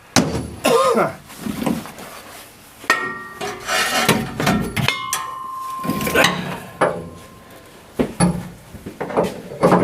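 Metal tools and steel parts being handled: a series of irregular clanks, knocks and scrapes, one strike leaving a short metallic ring.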